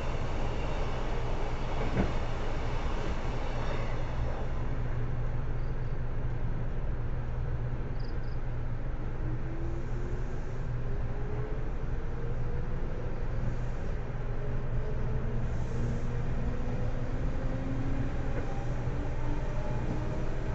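JR 811 series electric multiple unit running, heard from inside the car: a steady low rumble of wheels and motors, with one sharp click about two seconds in. From about halfway through, a whine from the fan-cooled traction motors rises steadily in pitch as the train gathers speed.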